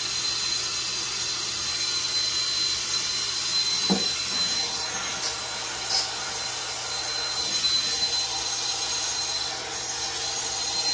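Hose-fed soldering torch flame burning with a steady hiss and a faint high whistle while heating a copper pipe joint. A short knock sounds about four seconds in.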